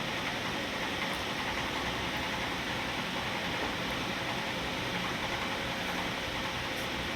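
Steady, even hiss of background noise, with no distinct clicks, beeps or tones.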